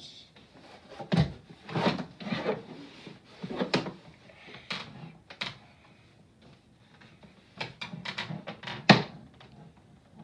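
Knocks and rubbing against a wooden toy chest as a child moves inside it and lowers its hinged wooden lid, which shuts with a thump near the end.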